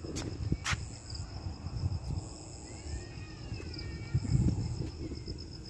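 Crickets chirping in a steady high trill, over a low rumble and a couple of sharp clicks in the first second.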